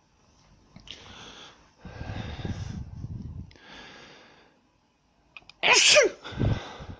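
A girl's build-up to a sneeze: three noisy breaths in, then a loud, short sneeze about five and a half seconds in, its pitch falling, with a shorter voiced sound right after it.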